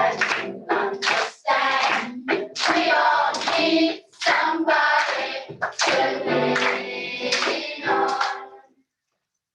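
A group singing a song together, the sound cutting off abruptly near the end.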